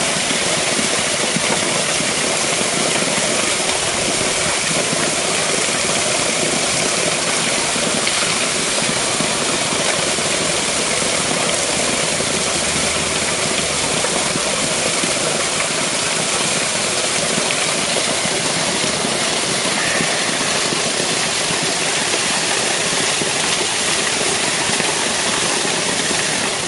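Water pouring from a culvert pipe in a stone wall and plunging down a waterfall: a steady, loud rush of falling water.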